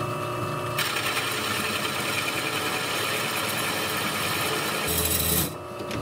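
Drill press motor running, then about a second in a 1⅛-inch carbide-tipped annular hole cutter bites into a quarter-inch steel bar. It gives a steady, hissing metal-cutting noise over the motor hum. Near the end there is a brief louder, deeper patch, then the cutting noise drops away and only the motor is left.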